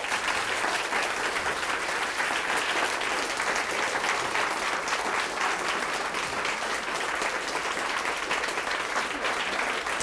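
Audience applauding steadily in a lecture hall, dense clapping from many hands.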